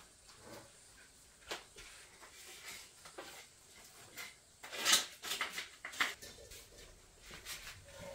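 Spatula scraping and tapping in a wok during stir-frying: scattered short clinks and scrapes, several close together about five seconds in.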